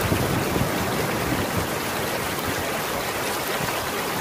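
Shallow water rushing steadily over rocks in a stream, with white water splashing.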